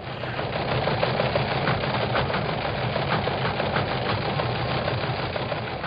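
Steady engine drone with a constant low hum, heard on an old archival recording that has no high end.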